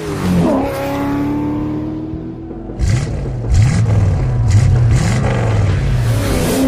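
Cartoon engine-revving sound effects for racing toy cars. From about three seconds in, the pitch swoops up and down repeatedly, with short hisses over it. A sliding glide and a held tone come before.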